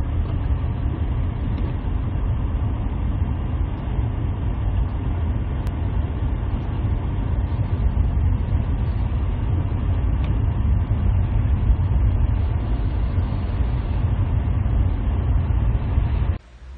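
Steady low rumble of a car driving on a snowy road, heard from inside the cabin: tyre and engine noise. It cuts off suddenly near the end.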